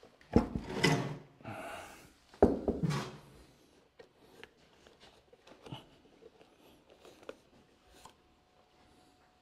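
Handling noise from repotting a large bonsai: two loud scraping knocks about two seconds apart, followed by faint scratches and small taps.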